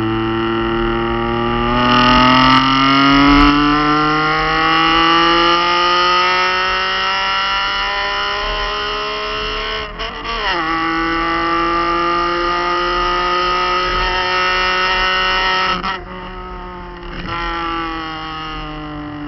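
Straight-piped exhaust of a BMW M52TU 2.8-litre straight-six with no mufflers, pulling under load with the pitch climbing slowly. The pitch drops sharply about ten seconds in and climbs again. Near the end it drops and the revs fall slowly.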